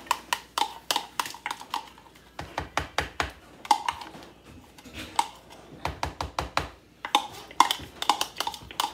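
A spoon tapping and scraping against a bowl and cup while deviled-egg filling is scooped into a plastic bag: sharp, irregular taps two or three a second, some with a short ring, and a few dull thumps in the middle.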